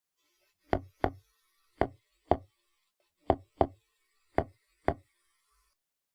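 Seahorse clicking: eight short, sharp clicks in four pairs, the pairs about a second apart.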